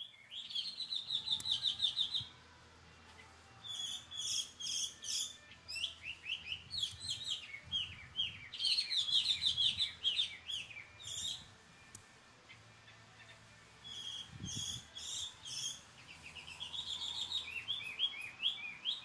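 Taiwan hwamei singing: varied phrases of rapid repeated notes and slurred notes, in three bouts separated by short pauses.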